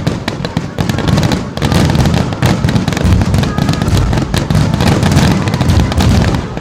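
A dense barrage of aerial fireworks shells bursting, rapid bangs and crackles packed closely together. The booms grow heavier about two seconds in and stay thick.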